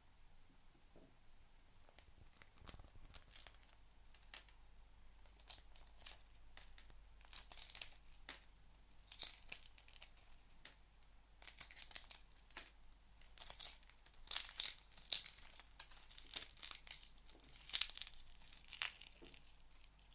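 Shell being peeled off an egg: irregular crackling and crinkling of the broken shell, sparse at first and coming in denser bursts from about five seconds in.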